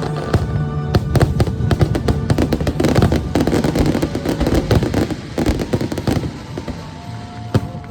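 Fireworks bursting in rapid succession with crackling, over the show's music from the park speakers; the barrage thins to a few single bangs after about six seconds.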